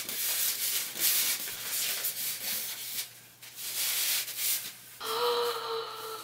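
Tissue paper and packing material in a cardboard box rustling as a wig on a foam head is lifted out: uneven, scratchy rustles with a brief lull about three seconds in. Near the end a short held tone lasts about a second.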